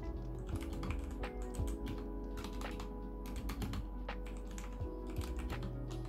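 Continuous typing on a Royal Kludge RK84 mechanical keyboard: a quick, irregular run of key clacks, with background music underneath.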